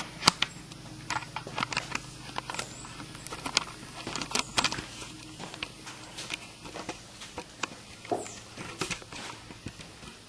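Camera being handled and mounted on a tripod: irregular clicks, taps and knocks close to the microphone, over a low steady hum.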